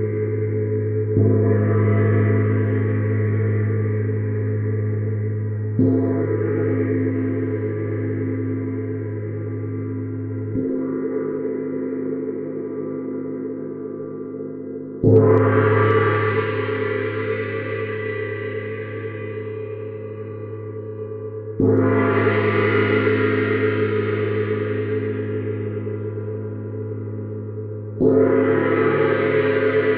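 A Neptune gong is struck with a soft mallet six times, about every five seconds, and the ringing never stops between strokes. Each stroke swells into a long, dense ringing wash that slowly fades under the next. The last three strokes are louder and brighter than the first three.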